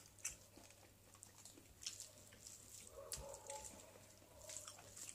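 Quiet eating sounds: fingers mixing rice and curry on a steel plate and chewing, heard as scattered soft clicks and smacks.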